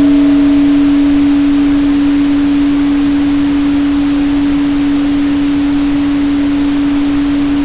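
Steady pure tone at 285 Hz over an even hiss of pink noise. A few fainter, higher tones fade out within the first second or two, leaving the single tone.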